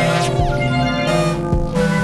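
Electronic music played on synthesizers: held chord tones over a low bass line, with deep drum hits about a third of a second in and again about a second and a half in, and a short falling sweep near the start.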